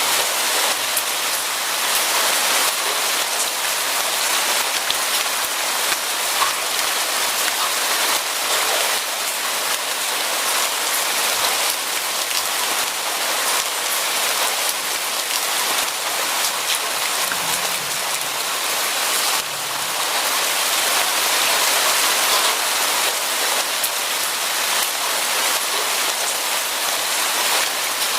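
Steady rainfall pattering on a surface, a dense hiss with fine crackle of drops.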